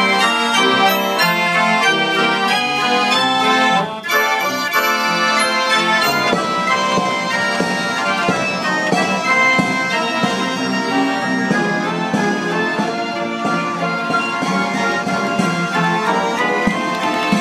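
PianOrchestra orchestrion playing a tune: a self-playing piano with ranks of pipes, its reedy pipe notes held over the piano, with a brief drop in loudness about four seconds in.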